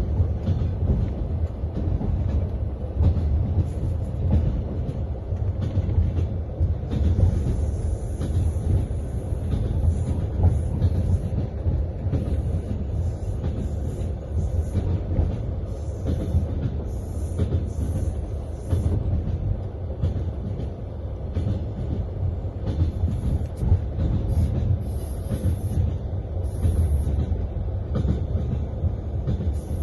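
Passenger train carriage in motion, heard from inside: a steady low rumble with the rapid clatter of the wheels over the rails.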